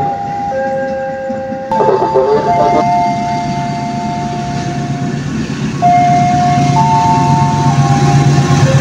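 A slow melody of long held tones sounding over the station. From about six seconds in, a low engine rumble grows louder as a diesel-hauled express train approaches.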